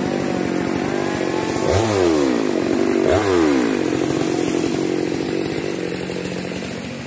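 Stihl MS 462 two-stroke chainsaw running, its engine pitch dipping and rising twice before settling into a steady run that fades slightly near the end.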